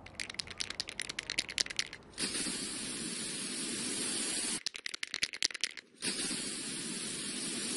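Spray-paint can sound effect: a couple of seconds of rapid rattling as the can is shaken, then a steady spray hiss lasting a few seconds; this happens twice.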